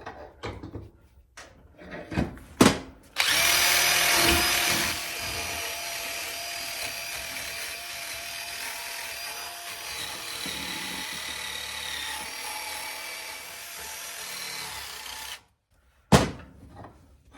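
Power drill with a wire brush running steadily, cleaning a VW pedal-assembly shaft. It starts about three seconds in, is loudest for the first two seconds, then runs on more quietly and cuts off sharply near the end. Light handling clicks come before and after it.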